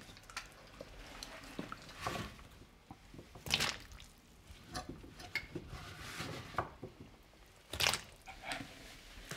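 Chunks of chopped vegetable dropped by hand into a steel pot of hot broth, splashing several times, the biggest splashes about three and a half and eight seconds in.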